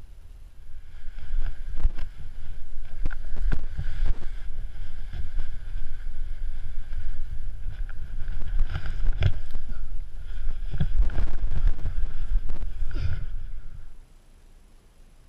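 Wind buffeting the microphone as a heavy low rumble, with a thin steady whistle above it and scattered knocks. It cuts off abruptly near the end.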